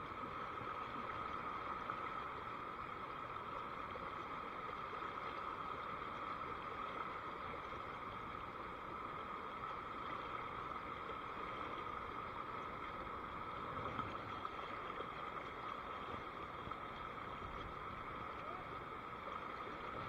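Steady rush of fast river water running over small rapids.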